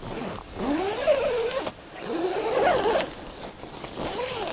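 Tent door zipper being pulled in two long strokes, each rasping with a pitch that rises and wavers as the pull speeds up and slows, then one short pull near the end.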